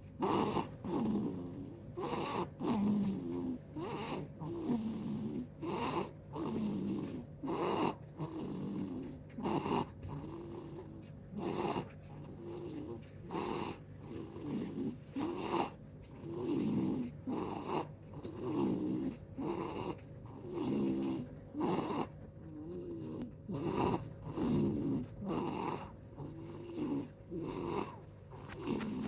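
Baby boy snoring in his sleep, a rough snore on breath after breath in a steady rhythm.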